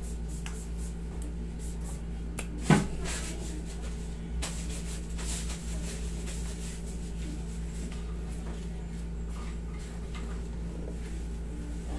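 Steady low hum of a room air conditioner, with one sharp knock about three seconds in and a few lighter clicks and rustles.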